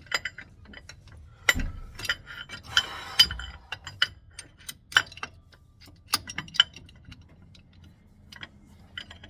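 Irregular metallic clicks and clinks of brake bracket parts and bolts being handled and fitted by hand, with a brief scraping rustle about three seconds in.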